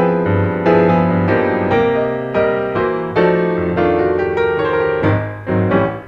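Piano music: struck notes and chords following one another at a steady pace, each ringing on until the next.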